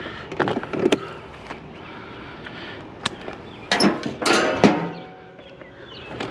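Knocks and clatter of hand tools being handled while tin snips are picked out, with a louder run of clanks about four seconds in.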